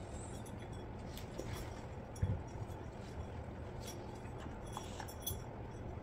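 Faint clinks and light taps of a glass jar and a string of fairy lights being handled and fed into the jar, with one dull knock about two seconds in, over a steady low background hum.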